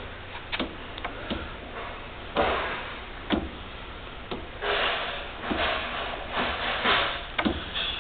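Clicks, knocks and scraping slides as parts of a tool and cutter grinder are worked by hand, with no motor running. A few sharp clicks come first, then longer rasping slides, several in a row near the end.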